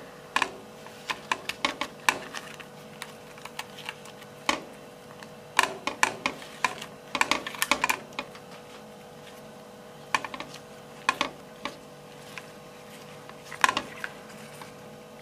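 Irregular crisp crackles and clicks of a cooked leaf parcel being untied and unwrapped by hand, the stiff leaves rustling as they are pulled open, over a faint steady hum.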